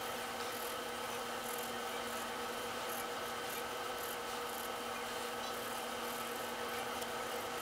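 Felt-tip pen scratching across a sheet of paper in quick sketching strokes, most of them in the first half, over a steady hum.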